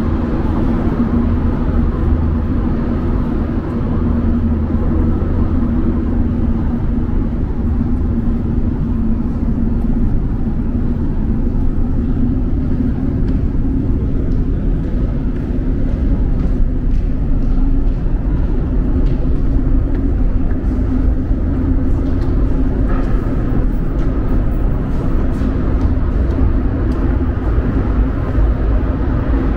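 Metro train running: a steady, loud low rumble with a constant low hum.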